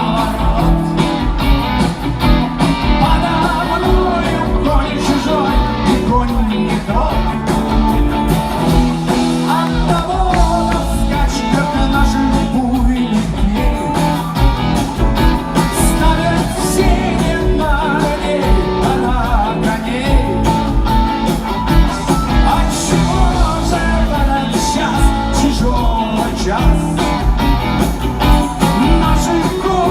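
Rock band playing a song, with guitar and singing.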